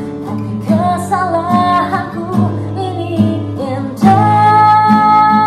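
A woman singing a slow melody over a strummed acoustic guitar. About four seconds in she comes in louder and holds one long note.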